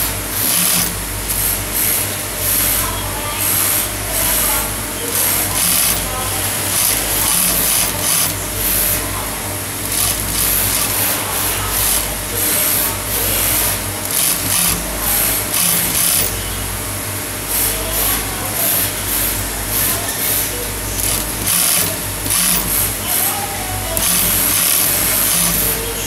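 High-head (post-bed) wig sewing machine stitching wefts onto a wig cap in short stop-start runs, with a steady low motor hum underneath.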